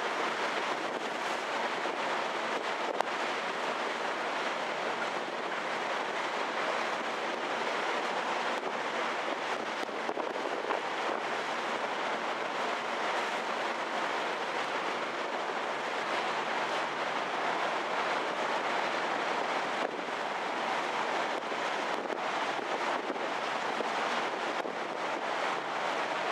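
Steady rush of wind and sea spray aboard the ferry Kuniga under way, with wind buffeting the microphone over a faint low engine hum.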